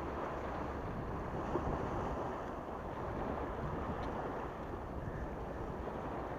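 Small sea waves washing and splashing against the rocks of a breakwater, a steady wash of surf with wind rumbling on the microphone.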